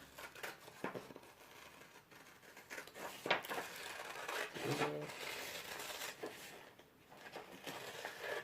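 Scissors cutting out a paper sewing template: irregular snips with the paper crinkling and rustling as it is turned.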